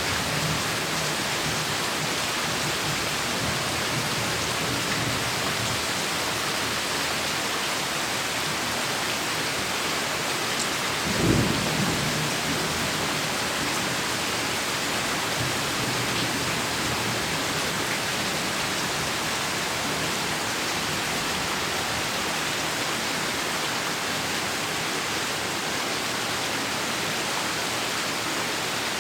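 Heavy rain falling steadily, with one short clap of thunder about eleven seconds in.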